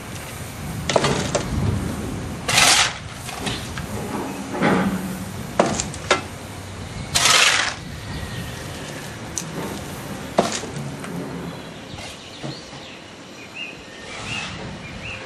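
Scraping and metallic knocking of hand tools working ash and clinker in the ash pit beside a steam locomotive being serviced on shed. There are a few short harsh scrapes and several sharp knocks, over a low rumble.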